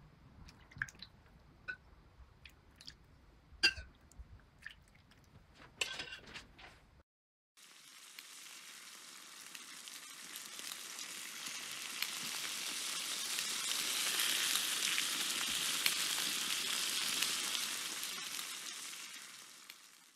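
A few faint clinks and splashes as broth is ladled over the plated lamb. After a brief silence comes a crackling hiss, a fire-like logo sound effect, which swells over several seconds and then fades out near the end.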